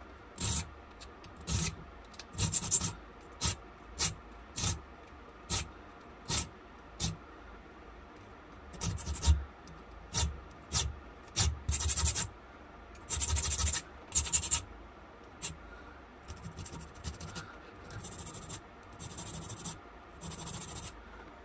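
Small hand file or scraper worked on a metal gun part in about twenty irregular strokes, some quick and single, some about a second long, each a sharp rasp.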